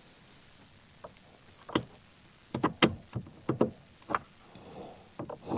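Needle-nose pliers clicking and knocking against a small plastic plug in a steering wheel as it is worked loose: a string of sharp little clicks, bunched in the middle.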